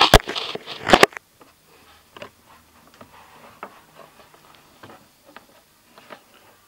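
Camera being handled close to its microphone: a cluster of loud knocks and rubbing in the first second. After that come scattered faint taps and shuffling as a person leans on and settles at a wooden table.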